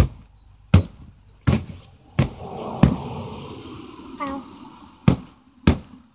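Broomstick knocking on a concrete driveway as it is twirled: sharp knocks about every 0.7 s for the first three seconds, then two more near the end.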